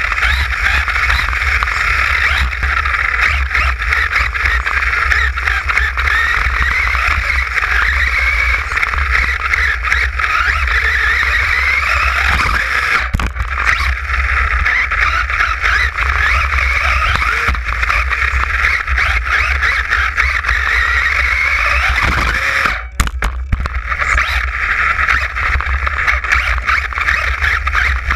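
RC buggy driving, heard from a camera mounted on the car: a motor and drivetrain whine that rises and falls in pitch with the throttle, over a constant low rumble of vibration on the camera housing. The sound drops out briefly about three-quarters of the way through.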